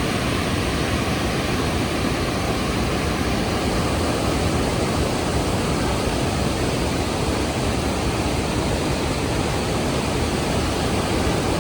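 Rhine Falls waterfall: a steady, loud rush of falling water with no breaks.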